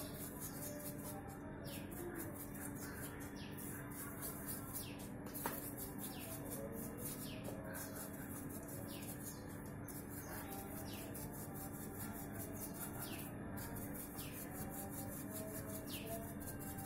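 Bicycle part being scrubbed with a brush in a small bucket of cleaning liquid: a faint rustling and sloshing under a steady low hum, with one sharp click about five and a half seconds in. A short, high, falling chirp repeats about once a second.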